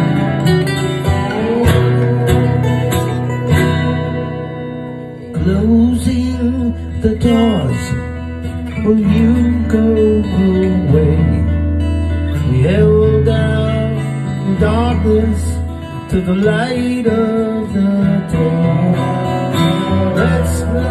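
Acoustic guitar strummed in an instrumental break, with a wavering, pitch-bending melody line over the chords from about five seconds in.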